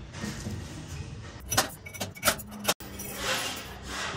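Steel wire spokes clinking against each other and the metal hub as they are handled, with four sharp metallic clinks in the second and third seconds over low background noise.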